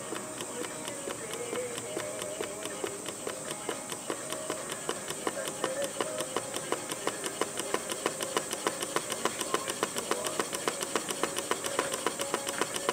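Stuart 10H model horizontal steam engine running steadily, with a regular rapid knock of about five a second that grows more distinct after a few seconds. The knocking is the sign of wear or play in the engine's moving parts before restoration.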